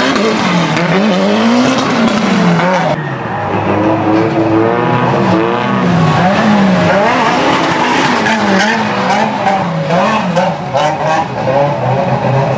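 Drift cars' engines revving up and down over and over, the pitch rising and falling about once a second as the throttle is worked through the corners, with more than one car at once and a rush of tyre noise on the wet track.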